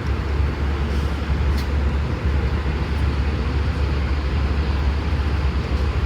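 Airbus A320 cabin noise in cruise: a steady rushing hiss of engines and airflow over a deep, even rumble.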